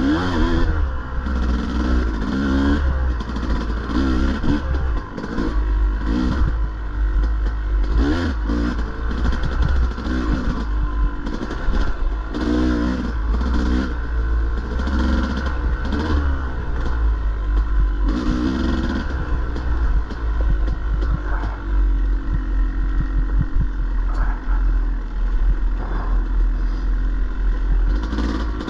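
Dirt bike engine revving up and down again and again under throttle as it is ridden along a rough trail, with clatter and knocks from the bike working over the ground and a steady low rumble.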